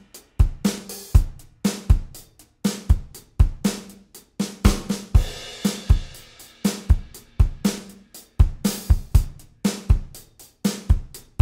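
Background music: a steady drum-kit beat with kick drum, snare and hi-hat.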